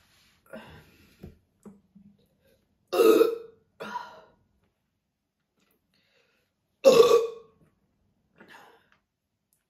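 A woman belching loudly twice, about three and seven seconds in, each big burp followed about a second later by a smaller one: gas coming up from the carbonated Sprite she has drunk.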